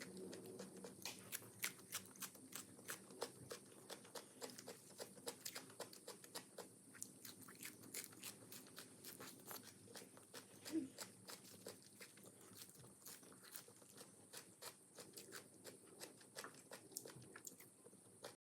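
Close-up chewing of crunchy food: a steady run of sharp, irregular crunches, several a second, as the food is bitten and chewed.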